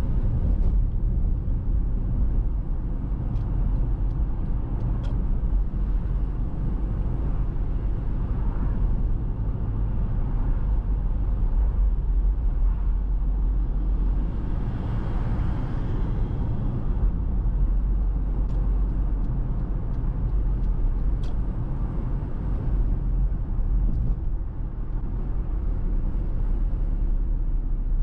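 Car driving along a city street: steady low road rumble and tyre noise. A swell of hiss about halfway through comes as a large truck passes close alongside, and there are a few faint ticks.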